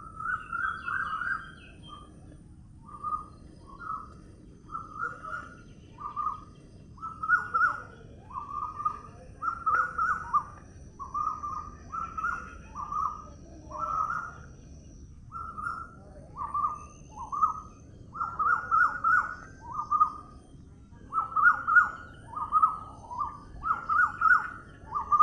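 A bird calling over and over, short notes about one to two a second, some run together in quick twos and threes, over a low steady background noise.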